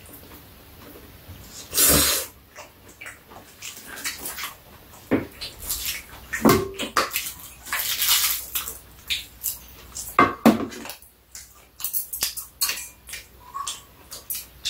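Two people eating: slurping japchae noodles and chewing, with metal chopsticks and spoons clicking and scraping against bowls and a metal tray.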